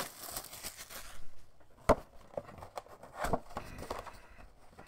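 Hard plastic card cases being handled: a short scraping rustle, then a few sharp clicks and knocks of plastic on plastic, the loudest about two seconds in.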